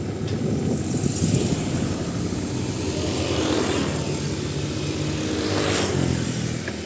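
Motor engine running steadily amid outdoor street noise.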